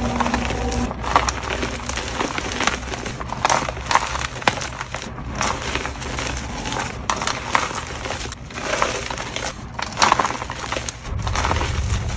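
Blocks of dyed gym chalk being crushed and crumbled, a dense run of irregular crunching and crackling snaps.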